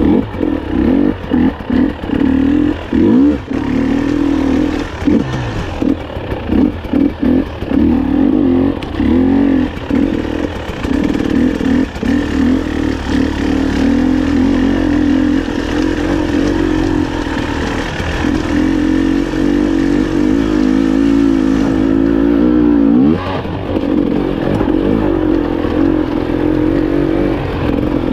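300 cc two-stroke enduro motorcycle being ridden off-road, the engine revving up and down with quick on-off throttle blips for the first ten seconds or so, then pulling more steadily. About 23 seconds in the revs drop sharply and climb again.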